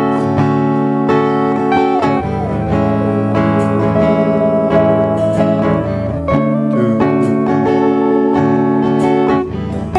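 Instrumental music led by plucked guitar, with a few sliding notes.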